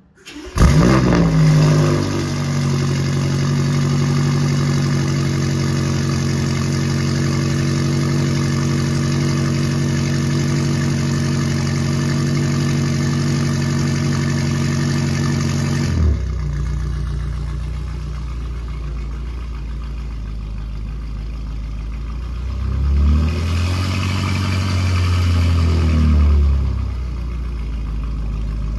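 BMW M5 F90's twin-turbo V8 cold-starting: it catches with a loud flare about a second in, then settles into a steady high fast idle that drops to a lower idle about halfway through. Near the end the engine note rises and falls once as the car pulls forward.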